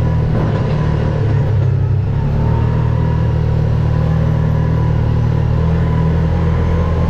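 Off-road vehicle engine running at a steady pace, a constant low drone with no revving.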